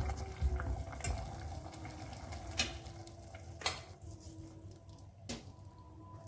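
Kitchen clatter: dishes and utensils being handled, with a few sharp clinks and knocks spaced about a second apart.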